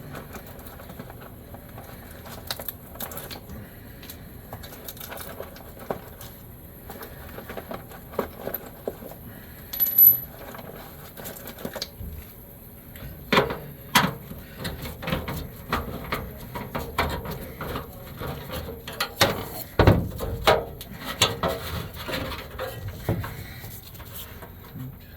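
Irregular metallic clinks, clicks and knocks of tools and hardware being handled while working on an air-conditioner's capacitor, with a few louder knocks about ten, fourteen and twenty seconds in.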